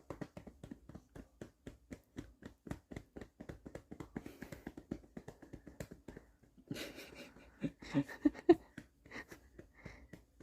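A hand patting a baby's back in a quick even rhythm, about five pats a second, to bring up a burp. About two-thirds of the way through, the baby makes a few short throaty grunts.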